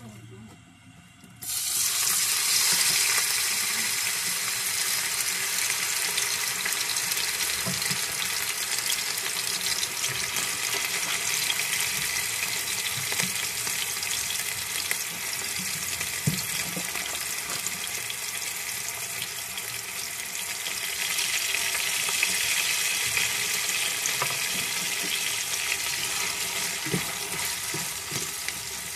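Diced raw chicken hits hot oil in a nonstick frying pan about a second and a half in, setting off loud sizzling that keeps on steadily. A spatula stirring the pieces knocks now and then.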